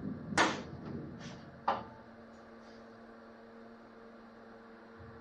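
Sharp metallic clacks from a manual sheet-metal brake as it bends a sheet of aluminium skin: a loud one about half a second in and another near 2 seconds with a brief ring, with a few lighter ticks between. A steady hum runs underneath.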